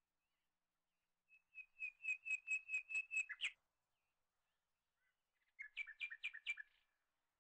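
A bird chirping: a quick run of about ten even, high chirps, then after a pause a shorter run of about five.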